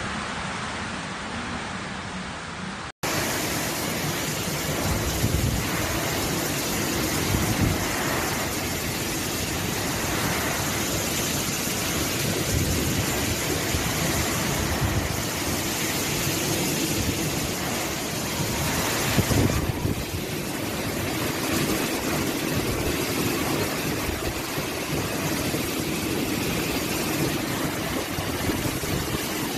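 Tropical cyclone wind and heavy rain: a loud, steady rush with a low, surging rumble from the gusts. It breaks off abruptly about three seconds in and comes back as a fuller rush in a second recording of the storm.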